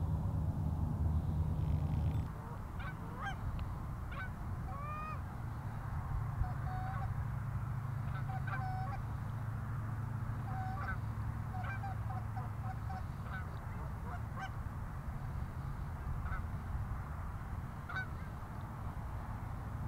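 Canada geese honking in flight: many short, rising honks scattered through, over a low steady rumble.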